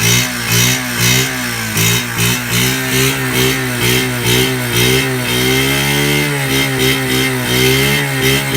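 1981 Honda Gorilla's 50 cc single-cylinder four-stroke engine running after a restoration, the throttle blipped over and over in quick rises and falls, about one and a half to two a second, holding steadier for a couple of seconds before the blips resume near the end.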